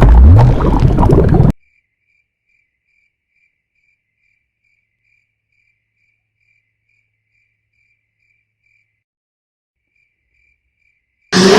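Cartoon sound effects: a loud noise with a low tone rising in pitch, cut off abruptly after about a second and a half, then faint crickets chirping about three times a second over otherwise dead silence, with a short pause before they resume. A sudden loud noise breaks in at the very end.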